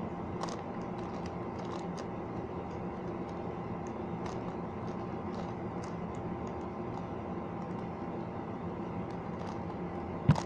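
Plastic 5x5 Rubik's cube being turned by hand: faint scattered clicks of its layers, with one sharper click near the end, over a steady background hum.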